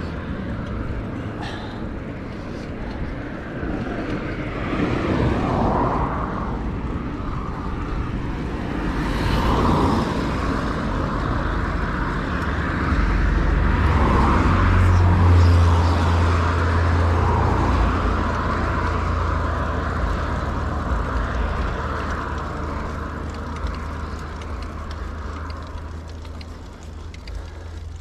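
Wind rumbling on the microphone and road noise while riding a bicycle, with traffic swelling and fading several times, loudest about halfway through.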